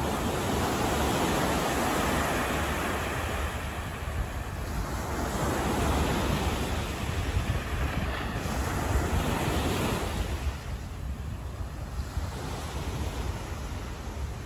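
City street ambience: a steady wash of noise with a low rumble, swelling louder twice and easing toward the end, as of traffic passing along the street.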